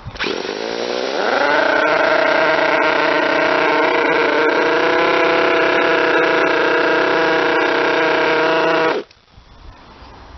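Model twin-rotor Wankel nitro engine running: it spins up in pitch over the first second, holds a steady high-revving note, then cuts off abruptly near the end.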